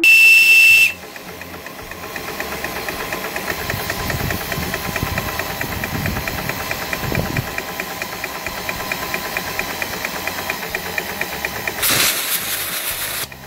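A steam whistle gives one short, loud, steady blast, then a small steam engine runs with a rapid, even beat. Near the end there is a brief loud hiss of escaping steam.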